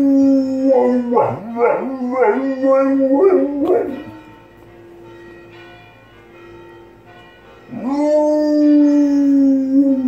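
A dog howling along to church bells: a long held howl breaks into several short wavering howls, stops about four seconds in, and a new long howl starts near the end. The bells ring faintly in the gap between howls.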